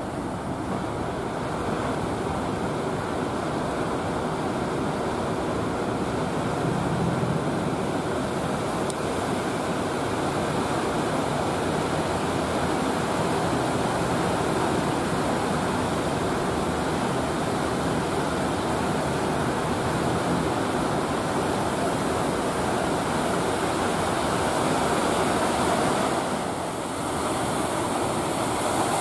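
Breaking surf and rushing seawater: a steady wash of waves that dips briefly near the end.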